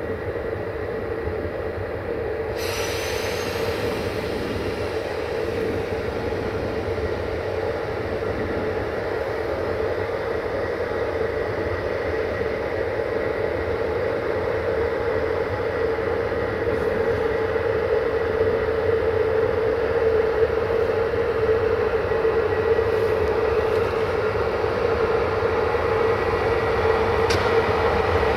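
060-EA class electric locomotive hauling a passenger train slowly into the station, a steady hum growing louder as it approaches. A brief high squeal about two and a half seconds in.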